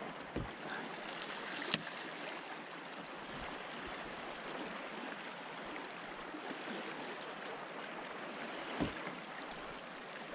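Tidal current swirling and lapping around a drifting sea kayak, a steady watery hiss. A sharp click comes about two seconds in and a dull knock near the end.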